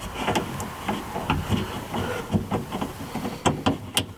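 Irregular plastic clicks and rustling as the door's wiring harness is handled and clipped back onto the inner door.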